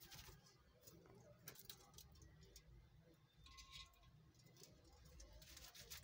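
Near silence with scattered faint clicks and ticks from Fischer's lovebirds moving about the aviary perches, including a wing flap at the start and a denser run of clicks near the end.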